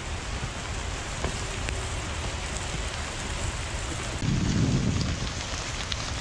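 Heavy rain hissing steadily, mixed with the rolling noise of a bike on a wet gravel track. A louder low rumble swells about four seconds in and fades about a second later.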